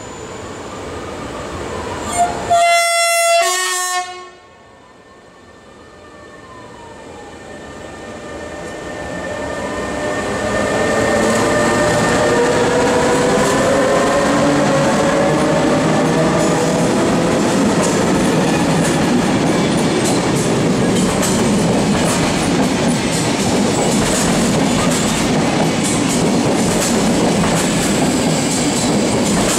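SNCB Class 13 electric locomotive sounding a short two-note horn about two seconds in, high then low. It then pulls away with a rising electric whine, and its coaches roll past with growing, then steady, rumble and clatter of wheels on the rails.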